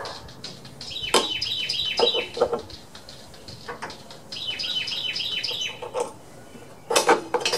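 A songbird sings two phrases of rapid repeated chirps, each about a second long, a few seconds apart. Under it come scattered metal clicks and clinks as the mower engine's ignition coil (magneto) is handled and refitted, with the loudest clatter near the end.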